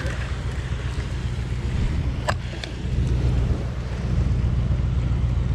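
Wind rumbling steadily on the microphone while a spinning reel is wound in, with two sharp clicks a little over two seconds in.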